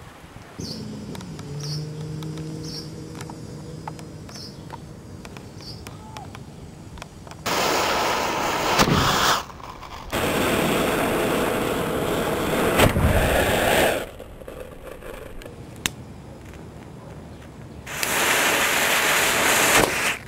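A miniature black-powder cannon going off in several short cut-together takes: loud bursts of hissing a few seconds long that start and stop abruptly, with a deep bang inside two of them.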